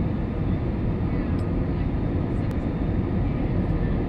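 Airliner engine noise: a steady low rumble with faint steady tones above it.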